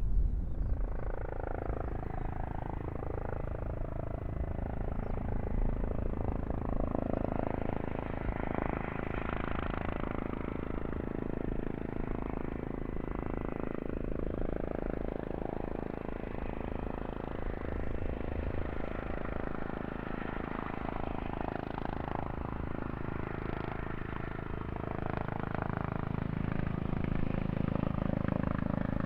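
Aircraft engines running steadily: a continuous rumble and whine with some held tones, swelling slightly near the end.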